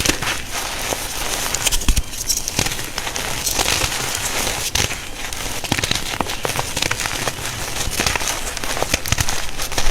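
A reformed block of gym chalk crunching and crackling as it is crushed, in a dense run of small sharp cracks.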